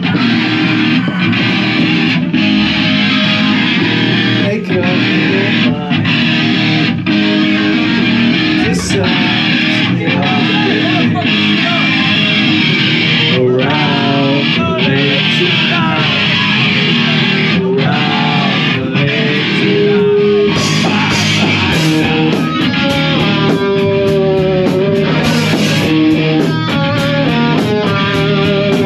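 Live rock band playing loud: electric guitars and drums, with a singer on a microphone.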